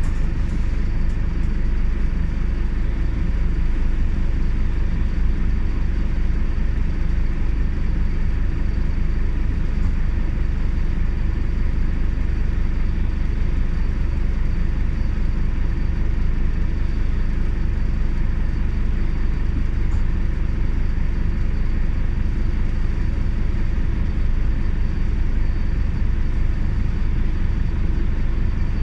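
Steady low rumble of a Scania OmniCity CN280UB city bus under way, its rear-mounted Scania DC9 9.3-litre five-cylinder diesel and road noise heard from inside the passenger cabin. A faint steady high whine sits above it.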